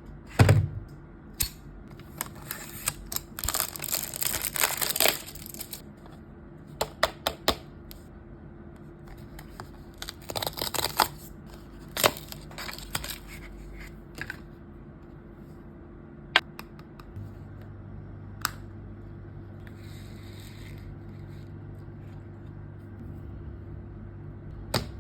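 Packaging being opened and handled: plastic or paper wrapping crinkling and tearing in a few stretches, among scattered sharp clicks and taps of a small plastic container.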